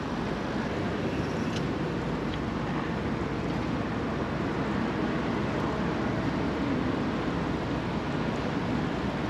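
Steady rumble of road traffic on a concrete highway bridge overhead, with two faint clicks about two seconds in.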